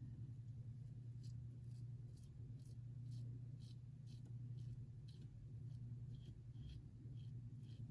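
Short strokes of a double-edge safety razor scraping stubble off a lathered neck, one soft scratch at a time, about two a second, over a faint steady hum.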